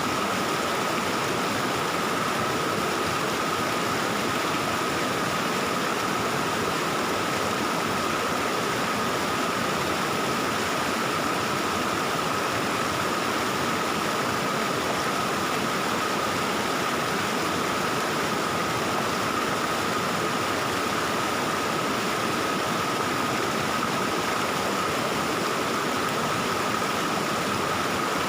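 Steady rush and babble of a valley stream's flowing water, unchanging throughout, with a thin steady high whine running through it.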